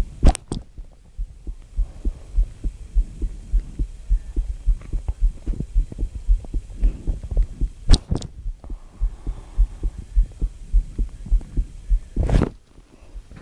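Three sharp hiccups, the first just after the start, another about eight seconds in and a last one near the end, over a fast run of low thumps.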